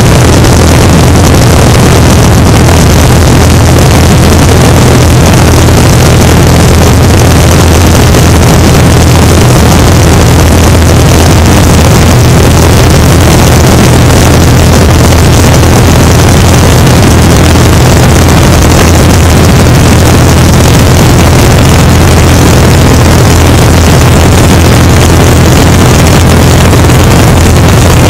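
Great Lakes biplane's propeller engine in steady cruise, a loud, unchanging low drone under heavy rushing air noise from the open-air slipstream.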